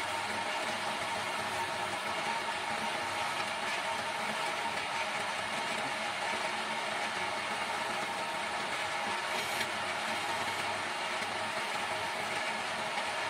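Electric wood lathe running steadily with a vase blank spinning, a faint motor hum under an even hiss as a hand-held turning tool cuts the wood.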